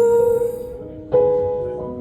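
A slow piano ballad played through B&W Nautilus loudspeakers. A held sung note fades out, then a piano chord is struck about a second in and rings down.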